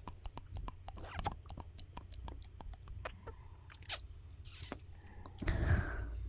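Close-up ASMR mouth sounds into a microphone: quick wet lip and tongue clicks and smacks, a sharp kiss-like pop about four seconds in, and a brief hiss of air. A louder rustling burst comes near the end.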